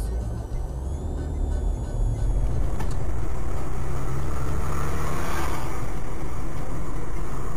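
Steady engine and road noise of a moving road vehicle. It gets louder and more even about two to three seconds in.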